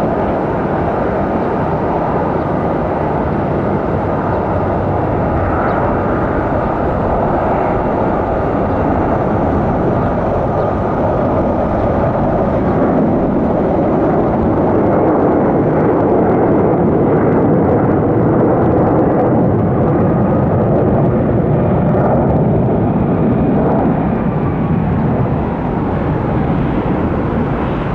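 Jet airliner engines running, a loud, steady rush that swells through the middle and eases a little near the end.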